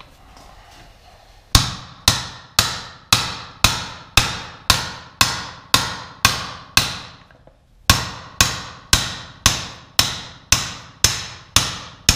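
Hammer blows on a metal drift driving a press-fit wrist pin out of a piston and connecting rod braced on a wood block, about two blows a second, each with a short metallic ring. The blows stop for about a second near the middle, then resume at the same pace.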